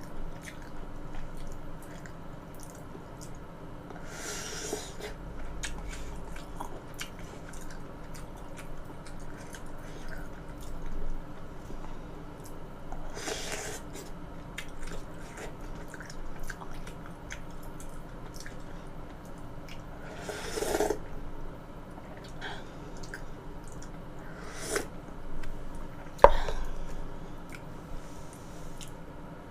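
Close-miked wet chewing and mouth clicks of a person eating. Three short hissing swells come through the chewing, and a sharp clink about 26 seconds in is the loudest sound.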